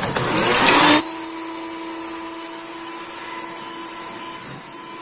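Electric hand mixer running, its beaters whipping egg whites to peaks in a ceramic bowl. The first second is louder; after that it settles to a steady motor whine.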